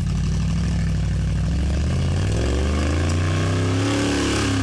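Off-road trial vehicle's engine running close by, its pitch rising from about two seconds in as it revs up, then holding at the higher speed.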